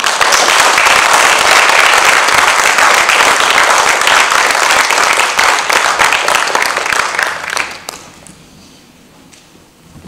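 Audience applauding, loud and steady, dying away about eight seconds in.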